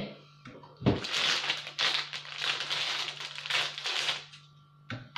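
Plastic bag of lumpia wrappers crinkling as it is handled and snipped open with scissors, with a thump about a second in.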